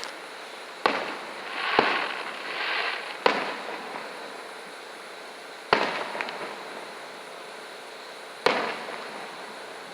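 Fireworks going off: five sharp bangs, one to three seconds apart, each fading quickly, with a crackling hiss around the second bang.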